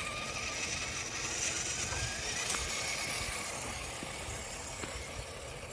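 RC4WD TF2 scale RC crawler truck driving, its electric motor and gear drivetrain whining steadily over a noisy rolling haze, a little louder midway.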